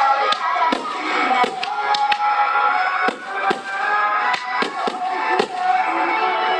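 Fireworks bursting in a string of sharp bangs, about a dozen spread over a few seconds, with music playing underneath.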